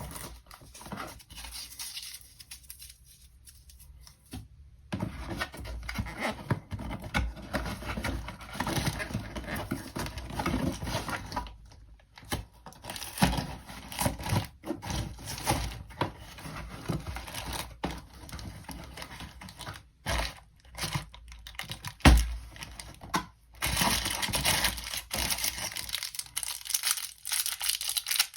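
Dishwasher tablet packaging being handled and opened: irregular crinkling and tearing of wrapping, with short clicks and pauses. A single sharp knock about two-thirds of the way through is the loudest sound.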